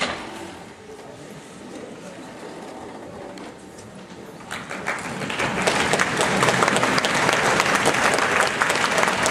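Audience applause breaks out about five seconds in, builds quickly and holds steady, a dense crackle of many hands clapping.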